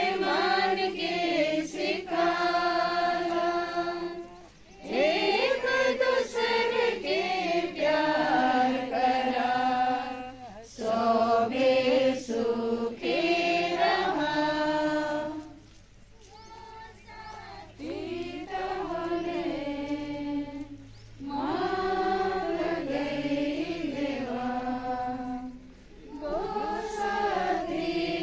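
A group of mourners singing a hymn together at a graveside, in sung phrases of a few seconds with short breaks between them.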